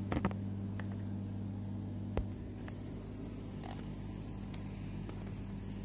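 A steady low hum, with a few faint clicks, one about two seconds in.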